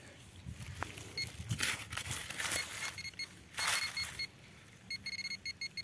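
Metal detector beeping on a buried target, a high tone pulsing on and off, then a fast, nearly continuous stutter near the end as it closes in on what turns out to be a small coin. A few short scraping noises of soil being dug sound between the beeps.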